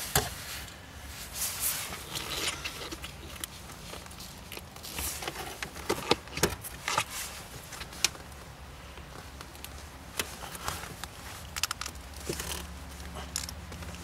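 Hands working a lubricated rubber shift-lever dust boot on a Mazda Miata shifter: irregular clicks, scrapes and rubbing, with a few sharper clicks. The boot is a tight fit.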